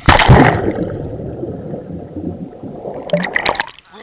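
A loud splash as a swimmer and camera plunge into murky water, then muffled underwater churning and bubbling. Sharper splashing follows near the end as the swimmer breaks the surface.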